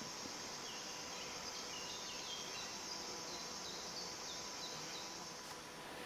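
Summer meadow ambience: a steady high insect buzz, with a small bird giving a run of short, high chirps over the first four seconds or so.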